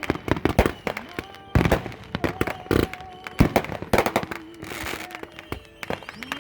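Fireworks and firecrackers going off: many sharp bangs and crackles in quick, irregular succession, with faint held tones under them.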